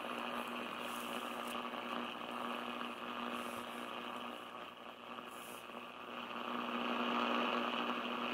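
Hiss and static from a Realistic DX-302 shortwave receiver's speaker as it is tuned across about 2.1–2.3 MHz between stations, over a steady low hum. The hiss dips about five seconds in, then swells as the preselector is peaked and the volume picks up.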